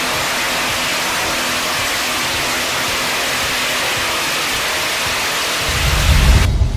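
Heavy wood-processing machinery running with a loud, steady rushing noise. A deep low rumble swells near the end and the sound then cuts off abruptly.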